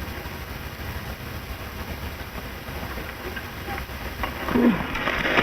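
Crackling hiss of an early sound-film optical soundtrack. Near the end there is a short pitched sound, then a sharp knock.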